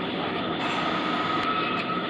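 Steady rumble and hiss of a vehicle in motion heard from inside its cabin, with a faint steady high whine over it.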